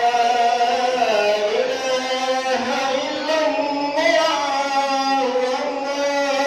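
Melodic singing in long, held, wavering notes that glide from pitch to pitch without pause.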